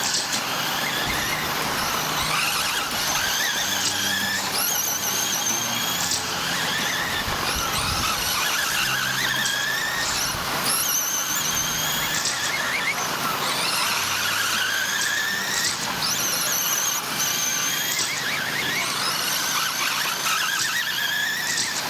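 Several electric RC short-course trucks racing together, their motors and drivetrains whining high. Each whine climbs in pitch as a truck accelerates, then drops off, and several overlap all the way through.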